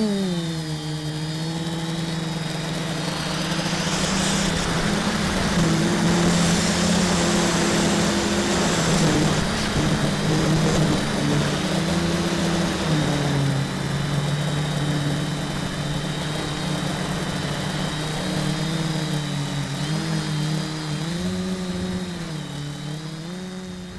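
Multicopter's electric motors and propellers buzzing, heard from the camera on the craft itself, the pitch stepping up and down as the throttle changes over a steady rushing hiss. The sound drops away near the end.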